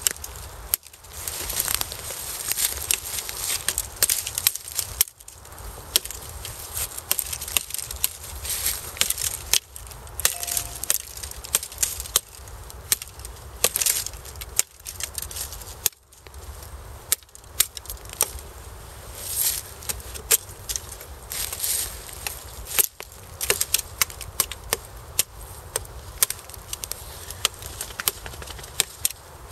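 A Ka-Bar USN Mark 1 knife chopping repeatedly at a dead branch: a string of irregular sharp chops and cracks of wood, with short pauses between runs of strokes.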